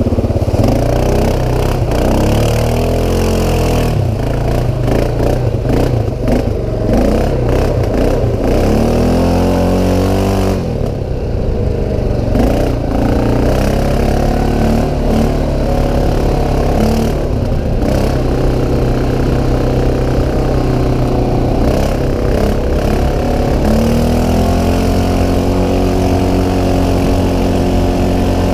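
CFMoto 500 ATV's single-cylinder engine revving up and down repeatedly under load, with scattered knocks and clatter; near the end it settles into steadier running.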